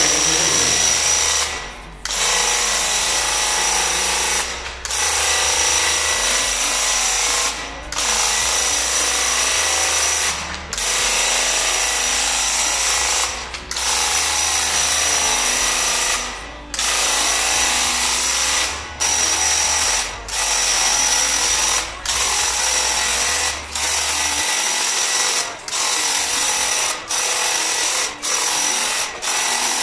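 Graco Ultra Corded handheld airless paint sprayer's electric pump running as it sprays paint, a steady buzzing hiss with a thin high whine. It cuts out briefly every one to three seconds as the trigger is let off and pressed again between passes, more often near the end.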